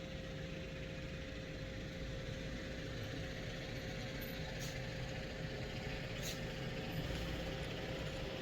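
A large vehicle's engine idling nearby: a steady low rumble with a constant hum, and a couple of faint light clicks.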